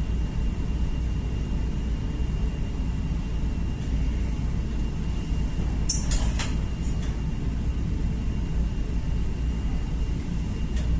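Ceiling fan running on its low speed setting: a steady low rumble with a faint steady high tone above it. A few brief clicks come about six seconds in.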